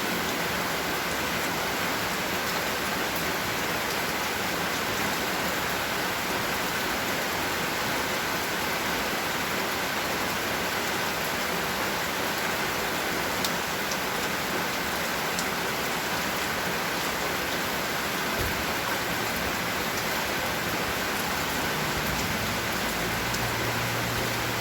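Steady rainfall: a dense, even hiss of rain pattering on surfaces, with the odd sharper drop tick.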